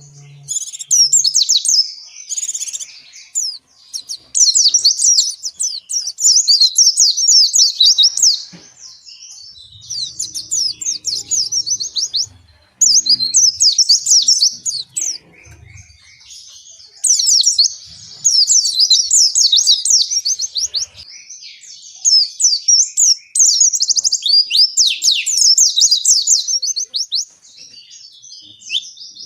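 Pleci (Zosterops white-eye) in full song ('gacor ngalas'), giving long runs of fast, high chattering and twittering notes with short pauses between phrases.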